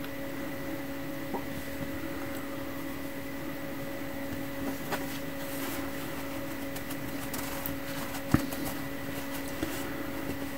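Soft rustling and a few light taps as fabric pieces are flipped and handled on a countertop, with one sharper tick about eight seconds in. A steady electrical hum runs underneath throughout.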